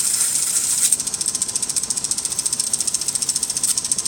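Toy K'nex paper shredder running: its motor and plastic gears make a fast, even clicking, louder for about the first second and then steady and a little quieter. The paper fed into it is not going through and jams.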